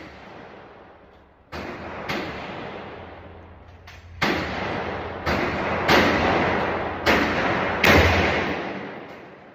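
Gunshots at a shooting range: about eight shots at irregular intervals, one every half second to two seconds, each with a sharp crack and a long echoing tail. The last few, around six to eight seconds in, are the loudest.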